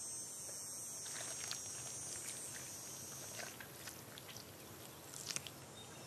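Faint, soft sounds of an adult cinereous vulture feeding its chick at the nest: scattered small ticks and rustles of bill and feathers, a little thicker about five seconds in, over a faint steady high hiss that drops away about halfway through.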